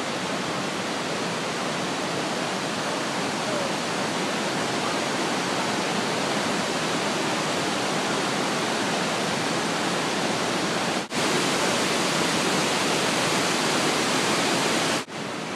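Steady rush of water pouring down the Croton Dam's stepped spillway in heavy flow. It breaks off for a moment twice, about 11 and 15 seconds in.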